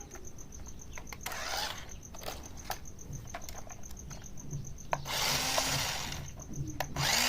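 Toy RC stunt car's battery-powered electric drive motors whirring in short bursts, the longest about five seconds in, with scattered clicks and ticks between them.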